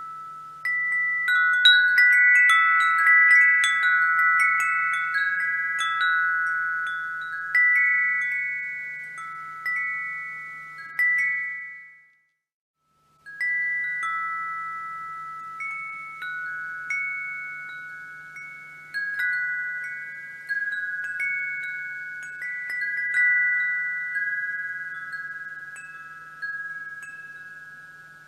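Wind chimes ringing, a handful of high notes struck every second or so, overlapping and fading out. About twelve seconds in the sound drops out to silence for about a second, then the chimes start again.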